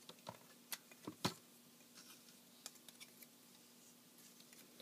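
Plastic parts of a TFC Toys Eagle transforming robot figure clicking and tapping as its arms are unpegged and raised: a few short clicks in the first second and a half, the loudest just after a second in, then a few fainter ticks.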